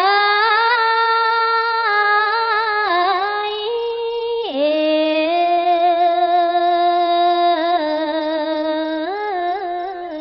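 Khmer smot chanting: a woman's solo voice holds long, ornamented notes of a Buddhist verse, sliding down to a lower note about four and a half seconds in.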